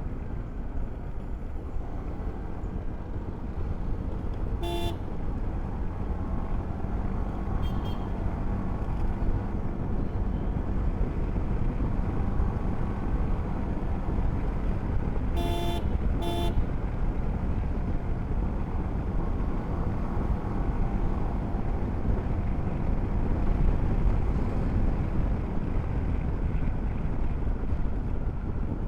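Motorcycle riding at speed heard through a bare mic with no dead-cat windscreen: steady low wind and road rumble over the engine. A vehicle horn beeps once about five seconds in, faintly again a few seconds later, and twice in quick succession around sixteen seconds in.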